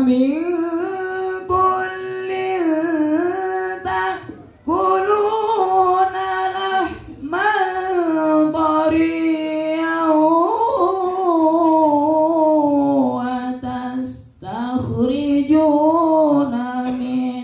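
A solo male voice sings unaccompanied into a microphone, long held notes with slow ornamented turns in pitch. There are four phrases, broken by short breaths about four and a half, seven and fourteen and a half seconds in.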